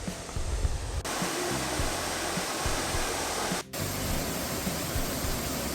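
Rushing roar of a waterfall laid over background music. The roar comes in abruptly about a second in, breaks off for a moment midway, and stops abruptly near the end.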